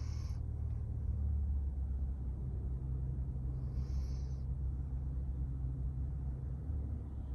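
Sleeping Doberman breathing slowly and deeply, a soft nasal hiss about every four seconds over a low steady rumble.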